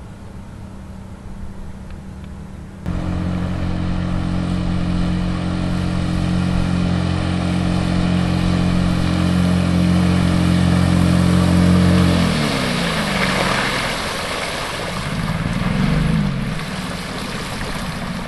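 Small outboard motor driving an inflatable boat flat out, a steady engine drone that becomes suddenly much louder about three seconds in. About twelve seconds in its pitch drops as it throttles back, then it rises and falls once more before running on lower.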